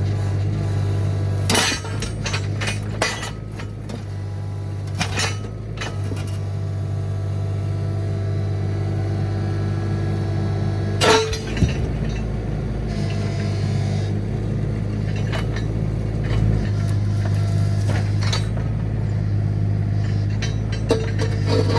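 Mini excavator engine running steadily, with scattered metallic clinks and clanks from the steel bucket and thumb at work; the sharpest knock comes about 11 seconds in.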